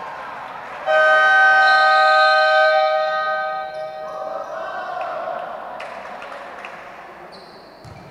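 Timekeeper's horn in a sports hall sounding one long blast. It starts suddenly about a second in, holds a steady chord-like tone for about two seconds, then dies away in the hall's echo.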